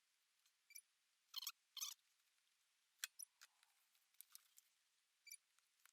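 Near silence with a few faint clicks and two short rustles about a second and a half in: small handling noises of the rubber tread strip being fitted and pressed onto the Roomba wheel.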